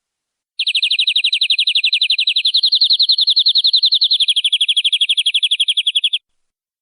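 Domestic canary singing one long, rapid trill of evenly repeated high notes, about ten a second, which steps up a little after a couple of seconds and drops lower near the end. It starts about half a second in and cuts off abruptly.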